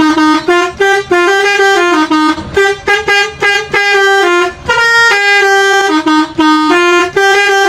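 Indonesian 'telolet' multi-tone bus horn playing a sholawat melody: a quick run of short and held horn notes that step up and down in pitch, with brief breaks between phrases.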